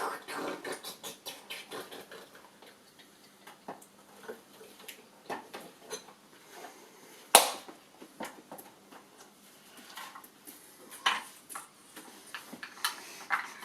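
Plastic toy-shop parts being handled and fitted together: scattered clicks and taps, with one sharp, loud click about seven seconds in.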